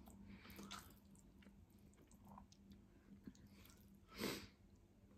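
Faint mouth sounds of a person chewing spicy rice noodles and rice cakes, with small wet clicks and one brief louder noise about four seconds in.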